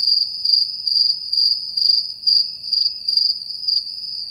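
Cricket chirping sound effect, high and steady in pitch at about two chirps a second, used as the comic cue for an awkward silence.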